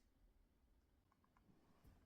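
Near silence: faint room tone with a few small, faint clicks.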